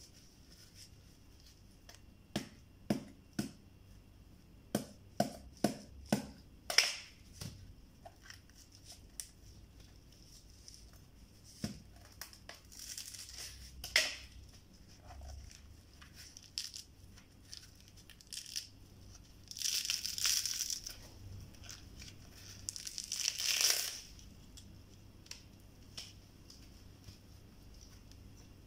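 Kitchen knife striking into a coconut's fibrous husk, about ten sharp chops in quick succession, then the husk being pried and torn away in strips, heard as three longer ripping bursts.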